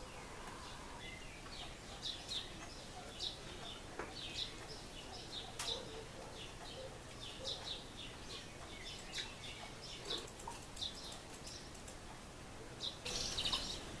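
Great spotted woodpeckers at the nest calling: short, high single-note calls repeated irregularly, about one or two a second. About a second before the end comes a brief, louder flurry of wingbeats.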